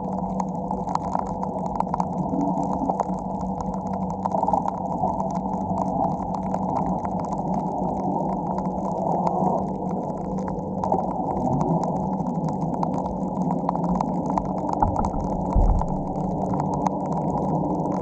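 Steady, muffled drone of a boat engine heard underwater, with faint scattered crackling clicks over it.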